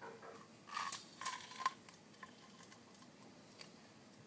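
Handheld lime squeezer pressing a lime half: two short, faint squeaky creaks, about a second in and again around a second and a half in, then a few small ticks.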